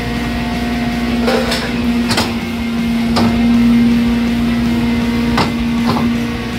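Rear-loading garbage truck's hydraulic packer cycling: a steady hum from the running hydraulic drive, with several sharp metallic clanks as the press plate moves through the hopper.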